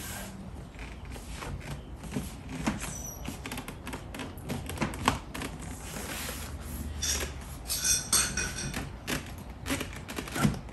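Plastic rear-door speaker insert trim panel being pressed and slid onto the door card of a BMW E36, its repaired clips being pushed home: a string of plastic knocks and clicks with rubbing squeaks. The squeaks bunch up about three quarters of the way through, and there are sharper knocks about halfway and near the end.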